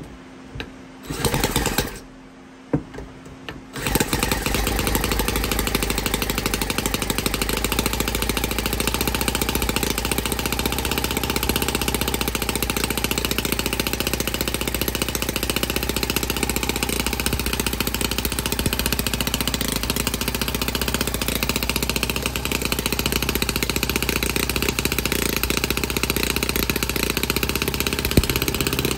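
Green CNC-machined 10cc Whippet tribute model engine being spun on its flywheel by a cordless drill in two brief whirs, then catching about four seconds in and running steadily at a fast, even beat.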